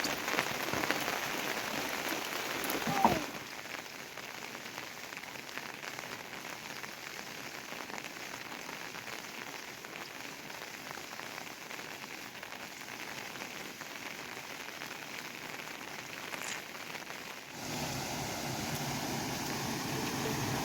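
Steady rain falling and pattering on surfaces. The rain sound changes abruptly about three seconds in and again near the end.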